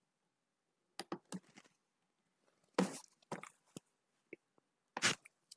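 About eight scattered, irregular clicks and short knocks, two louder ones about three and five seconds in: computer mouse clicks and small handling noises at the desk.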